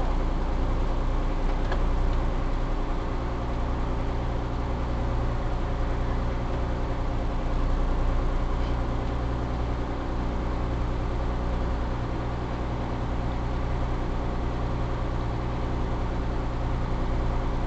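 Small river ferry's engine running steadily underway: an even, low drone.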